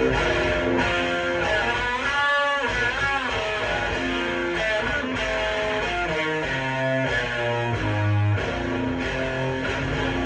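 Electric guitar played through a Death By Audio Crossover Fuzz pedal stacked with overdrives, heavily distorted. It plays sustained notes, with a wide wavering string bend about two seconds in and another bent note near the end.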